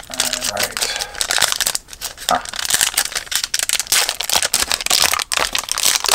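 Close-up crinkling and rustling of a trading-card pack wrapper and cards being handled, a dense run of irregular crackles.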